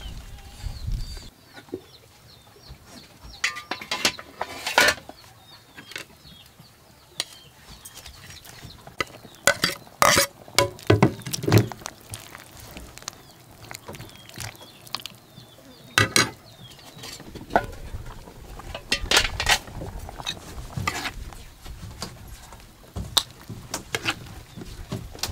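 Scattered clatter and knocks of pots, dishes and utensils being handled, a few strikes at a time with quiet gaps between.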